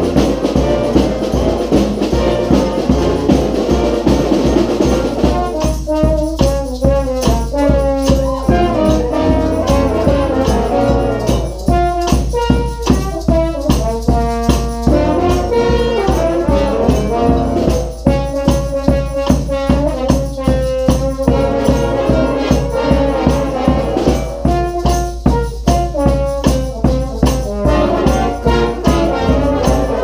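Street brass band playing a rock tune together: sousaphone, saxophones, trumpets and trombones over a steady snare-drum beat. The horn riffs stand out clearly from about five seconds in.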